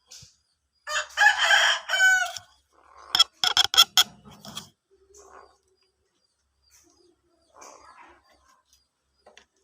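Javan myna (jalak kerbau) calling: a loud crow like a rooster's about a second in, then a quick run of sharp clicking notes, then a few softer calls later on.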